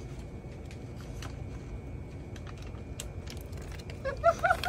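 Steady low hum of a shop interior with scattered faint clicks and taps, like small items handled on a counter. Brief vocal sounds come near the end.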